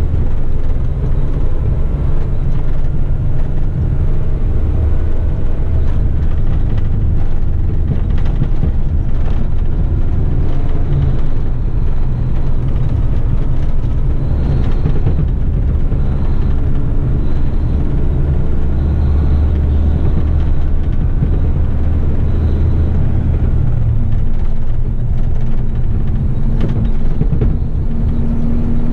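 Isuzu heavy truck's diesel engine and road noise heard from inside the cab while driving: a loud, steady low drone. The engine note steps up in pitch a few seconds before the end.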